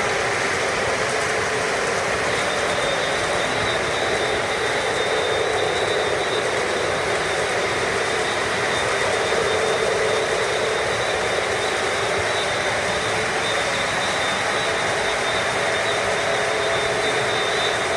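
Several O-gauge model trains running at once on three-rail track: a steady rumble of wheels on the rails and whirring of the electric motors, with a thin high whine held steady over it.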